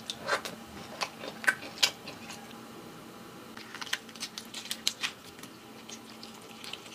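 Steamed lobster shell being handled and broken apart by hand: sharp cracks and clicks, four in the first two seconds and a quicker cluster around the middle.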